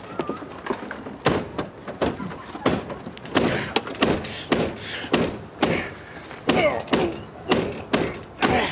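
A rapid run of sharp knocks and thuds, about three a second, some trailed by a short sliding tone.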